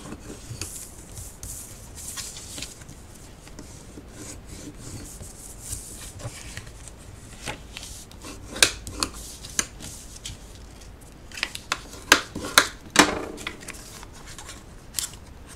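Bone folder rubbing and scraping along cardstock as the scored folds are re-creased, then the crackle and snapping of the stiff card as it is folded up into a bag shape, with the sharpest snaps a little past the middle and near the end.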